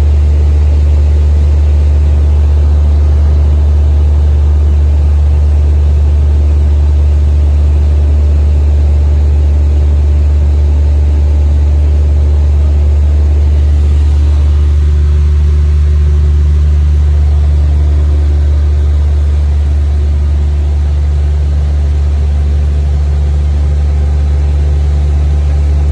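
Steady drone of a single-engine light aircraft's propeller engine in cruise, heard from inside the cabin. The low hum of engine and propeller is loudest, with a rushing haze of air noise over it.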